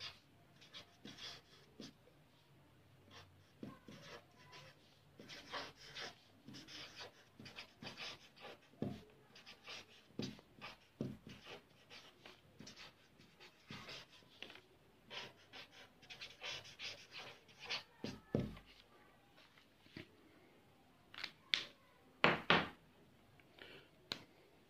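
Felt-tip marker writing on paper: short, irregular scratching strokes, with a couple of louder scrapes near the end.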